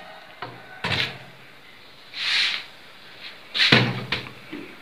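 Wooden rearing boxes and a wooden shelf rack being handled as the boxes are shifted: sharp wooden knocks about a second in, a short scrape near the middle, and a cluster of knocks and scrapes near the end.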